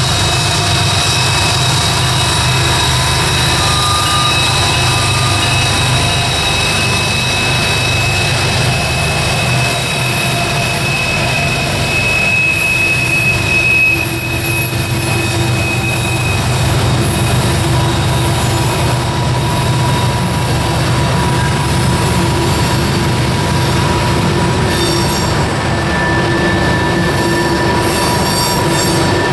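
Diesel freight train passing: the lead locomotives' engines rumble by at first, then a long string of tank cars rolls past with wheel squeal, several steady high-pitched tones over the rumble of the wheels.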